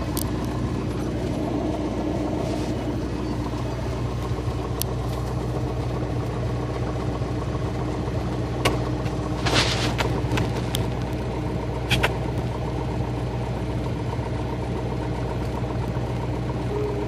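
Light aircraft engine droning steadily, heard inside the cabin as the plane rolls along the runway. A few brief clicks come through about halfway in.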